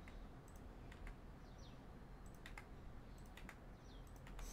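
Faint, scattered clicks and taps of a computer keyboard and mouse, irregularly spaced, over low room hiss.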